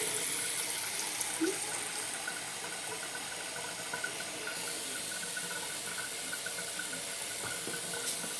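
Vintage bathroom sink faucet running, a steady stream of water splashing into the basin.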